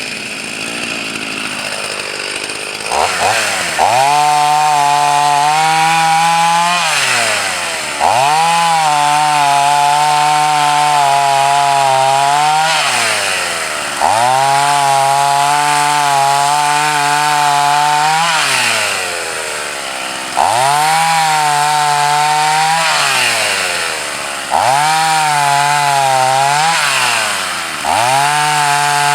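Husqvarna 44 two-stroke chainsaw bucking a log. The throttle opens to full revs about six times, each cut lasting a few seconds, with the pitch sagging a little as the chain bites, then dropping back toward idle between cuts.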